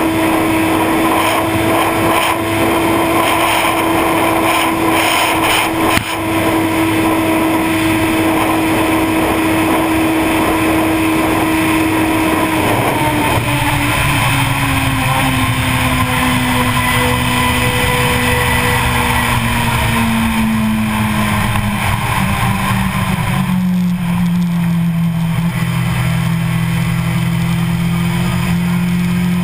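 A Kawasaki sportbike's engine pulling a steady high note at about 250 km/h under heavy wind rush. About halfway through, the note starts falling slowly as the bike slows to around 130 km/h.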